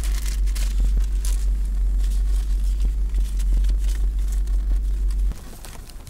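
Steady low rumble of a car's idling engine heard inside the cabin, with a clear plastic bag crinkling as it is handled. About five seconds in it cuts off abruptly to a quieter outdoor sound.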